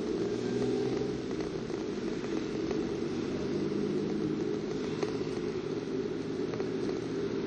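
Steady low drone of a car's engine and tyres on the road, heard from inside the moving car.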